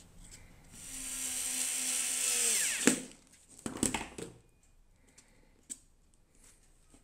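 Cordless drill/driver driving a small screw through the end of the sandpaper sleeve into a sanding drum. The motor runs steadily for about two seconds, then winds down with a falling pitch, followed by a few clacks about a second later.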